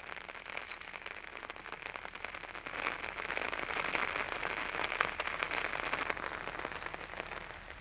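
Heavy rain falling, a dense patter of drops that grows a little louder in the middle.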